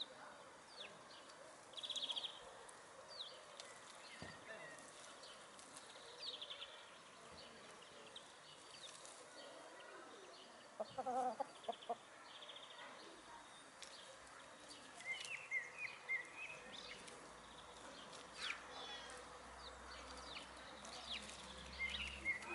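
Brown laying hens foraging, one hen giving a short cluck about halfway through, with high short chirps here and there.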